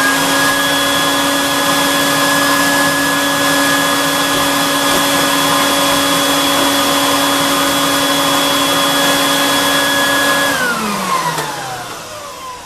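Bee vacuum's motor head running steadily at a constant pitch, drawing suction through the hose into the bee collection box. About ten seconds in it is switched off and winds down, its pitch falling as the motor coasts to a stop.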